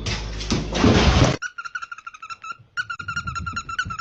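A loud burst of noise, then an animal making a fast run of short high chirps, about eight a second, with a brief pause partway through.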